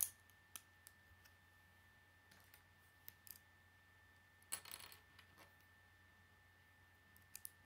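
Faint clicks of hard plastic Lego plates being handled and snapped together, a few single sharp clicks with a short rattling cluster about halfway through.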